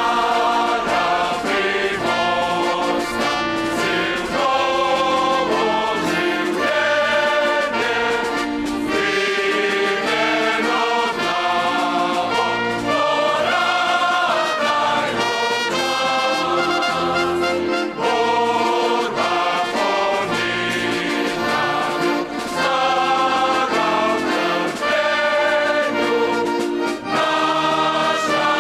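A choir singing with orchestral accompaniment that includes brass.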